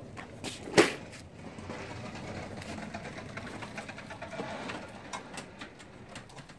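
A single sharp knock about a second in, then a few seconds of faint, uneven rustling and shuffling with small clicks.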